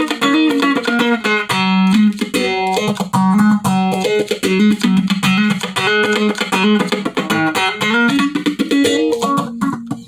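Electric guitar played through a Malekko Phase phaser pedal: picked notes and chord fragments in quick succession, with a short break near the end.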